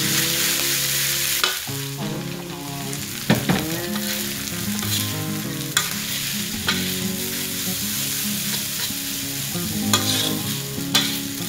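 Glass noodles sizzling in a hot metal wok as they are stir-fried with a metal spatula. The spatula scrapes and clacks against the wok at irregular moments over the sizzle.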